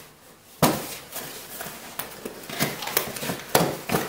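A small cardboard box being opened by hand: a sudden loud cardboard sound about half a second in, then irregular rustling and clicks of the flaps and packaging, with another sharp knock near the end.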